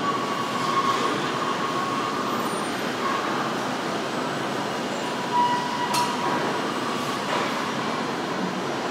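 Steady machinery noise of a car assembly line, with a faint high steady tone that comes and goes. There is one sharp clank about six seconds in.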